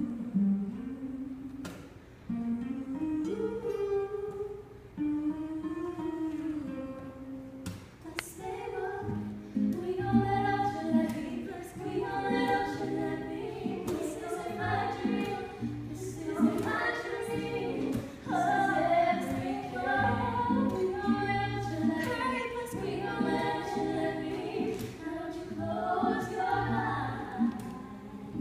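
Live female singing with two acoustic guitars. For the first eight seconds or so a single voice sings slowly over sparse guitar. From about nine seconds in, the guitars play fuller and several voices sing together.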